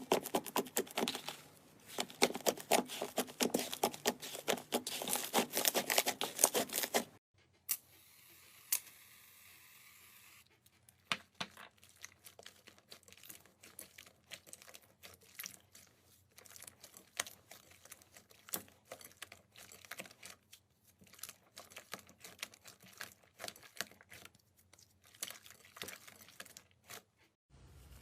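Slime being squeezed and stretched by hand, giving a dense run of crackling pops for about seven seconds. After a sudden cut, sparser and quieter clicks and pops continue until another cut near the end.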